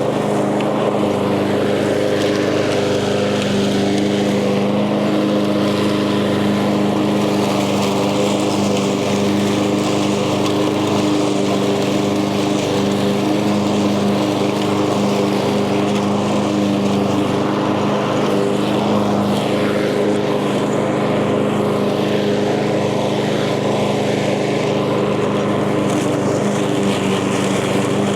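Echo gas walk-behind lawn mower engine running steadily while cutting tall, thick grass and weeds, its pitch holding even throughout.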